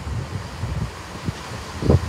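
Networker Turbo diesel multiple unit approaching with a low, uneven rumble, mixed with wind buffeting the microphone; a single low thump near the end.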